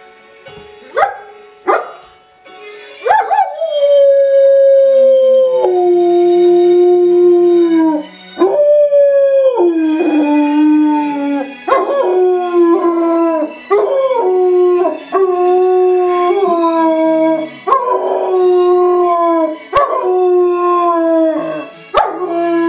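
German Shepherd howling along to television theme music: a few short yelps at first, then long drawn-out howls that hold and slide down in pitch, starting again about every second and a half, with the music playing underneath.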